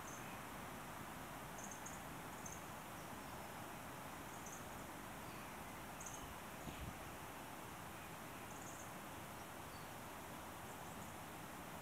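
A small bird giving short, very high, thin call notes, about six of them a second or two apart, over a steady background hiss. A soft low thump sounds about seven seconds in.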